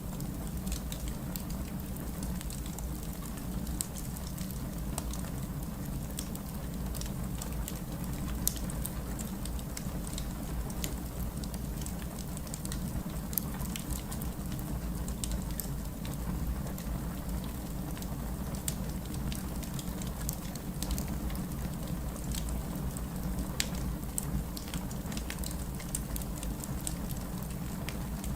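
Fireplace ambience: a fire crackling, with scattered sharp pops and snaps over a steady low rushing background.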